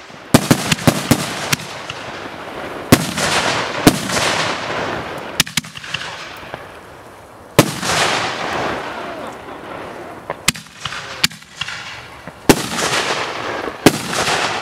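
Reloadable fireworks canister shells fired from a 16-shot rack: sharp bangs every second or so, irregularly spaced, some in quick pairs. Several of the loudest are followed by a fading hiss lasting a second or two.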